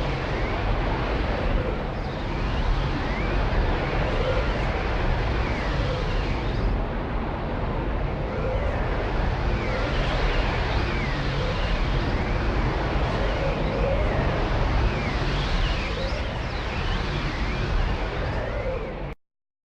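Magic sound effect: a dense rumbling wash of noise threaded with faint whistling glides that rise and fall, cutting off suddenly near the end.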